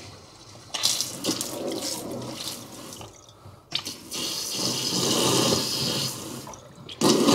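Water running from a newly installed pull-down faucet's sprayer head into a stainless steel sink's drain, as the new supply lines are bled. The flow starts about a second in, drops out briefly near the middle, then runs louder.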